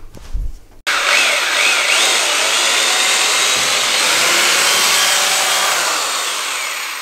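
Corded electric drill boring a pilot hole into the wall for a wall plug. It starts abruptly about a second in and runs steadily, its pitch wavering at first and easing slightly near the end.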